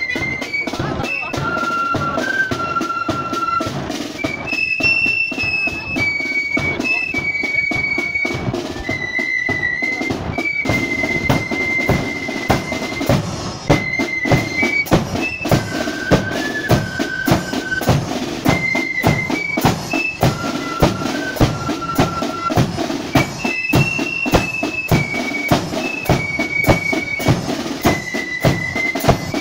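A marching flute band playing: a flute melody over side drums and a bass drum beating a steady march rhythm. The drum strokes stand out more sharply from about halfway through.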